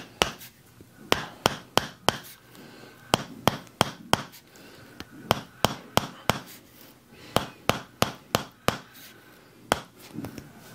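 A hand-held chiropractic adjusting instrument clicking sharply in quick clusters of three or four, about a third of a second apart, with short pauses between clusters, as it is worked over the muscles around the shoulder blade.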